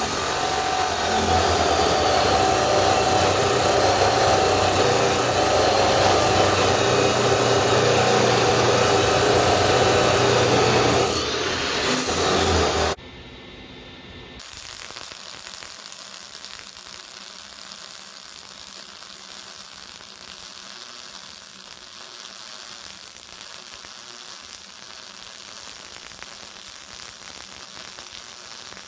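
A power tool cutting steel C-channel runs loudly and steadily with a sustained whine, then cuts off abruptly about 13 seconds in. What follows is a much quieter steady hiss.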